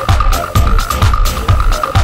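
Electronic dance music backing track with a steady, driving kick-drum beat, a little over two beats a second.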